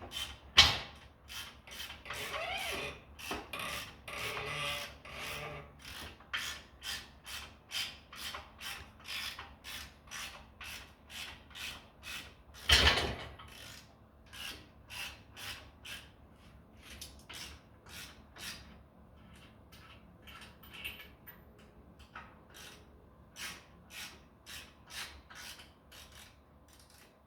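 Half-inch Capri ratchet worked back and forth on a bolt, its pawl clicking in short bursts about twice a second. There is a louder knock about a second in and another about halfway through.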